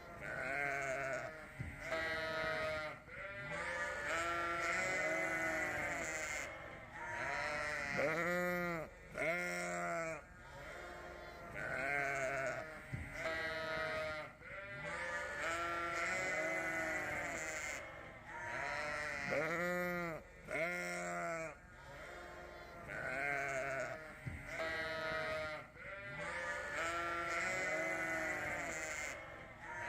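A flock of sheep bleating almost without pause: many overlapping calls, some deep and some high, rising and falling in pitch.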